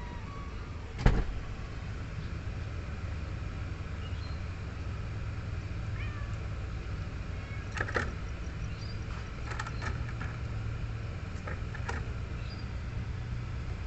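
Steady low background rumble with a few short, sharp clicks, the loudest about a second in and others later on.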